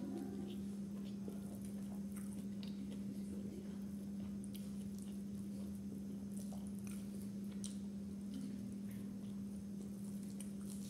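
Eating by hand: soft chewing with small wet clicks and squishes of fingers working biryani rice on a plate. A steady low hum runs underneath.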